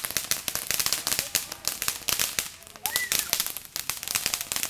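Ground fountain firework spraying sparks, crackling with rapid, irregular pops that thin out briefly around the middle before picking up again.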